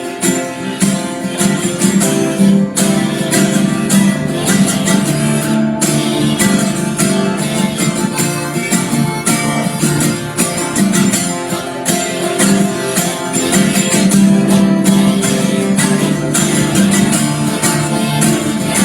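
Acoustic guitar strummed steadily through an instrumental break between sung verses of a live song.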